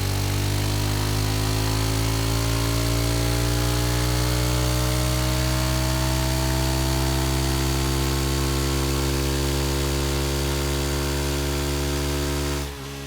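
Suzuki motorcycle engine running steadily, its pitch creeping up slightly over the first few seconds and then holding, before cutting off suddenly near the end.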